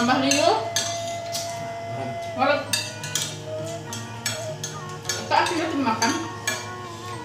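Spoons and plates clinking and scraping as several people eat from ceramic dishes, over background music.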